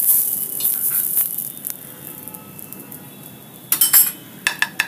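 Oil sizzling on a hot flat pan, fading over the first two seconds, then a cluster of sharp clinks of a utensil against dishes near the end as the uttapam is lifted onto a plate.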